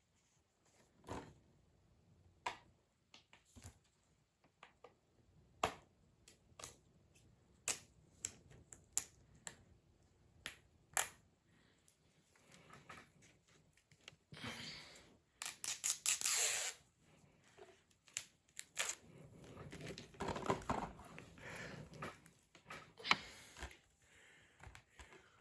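Fingernails picking and scratching at the security tape on a plastic DVD case: a long run of sharp clicks and taps, with a louder stretch of peeling and scraping about halfway through, then softer handling of the case.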